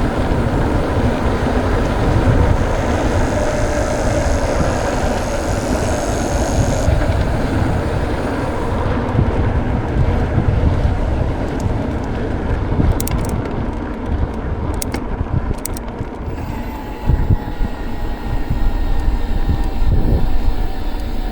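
Wind buffeting the microphone with steady rumbling road noise while riding a mountain bike, plus a few light clicks and, near the end, a faint falling whine.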